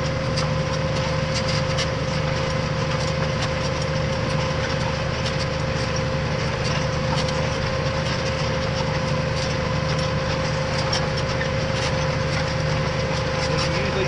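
Tractor engine heard from inside the cab while ploughing: a steady drone under load with a constant pitched whine, and light rattles and ticks throughout.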